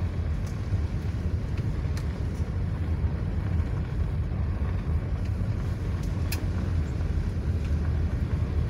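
Car driving on a dirt-and-gravel road, heard from inside the cabin: a steady low rumble of tyres and engine, with a couple of sharp clicks.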